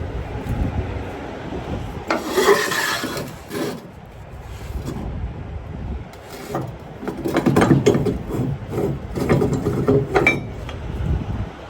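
Cargo straps being worked on a flatbed load: webbing rubbing and scraping with quick uneven clicks, in two stretches, the second longer.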